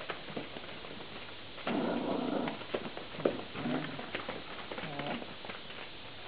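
Vizsla puppies at play: small whimpers, yips and growls, with a louder scuffle about two seconds in and a sharp tap a little after three seconds.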